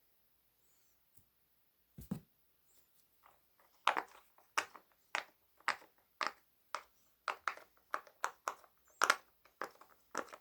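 Silicone pop-it fidget toy bubbles being pressed: a run of short pops, about two a second, starting about four seconds in, after a single knock about two seconds in.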